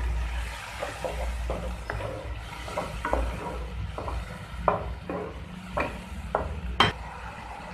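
Spatula scraping and stirring thick onion-tomato masala paste in a kadai, with a light sizzle as the paste fries down. The scrapes come irregularly, about every half second, the sharpest one near the end.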